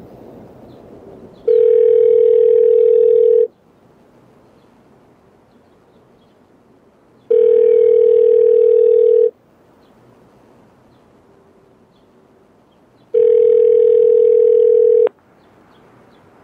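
Telephone ringback tone heard on the caller's end of the line: three steady two-second rings about six seconds apart, the US-style ring cadence, over faint line hiss. The third ring is cut off by a click as the call is answered.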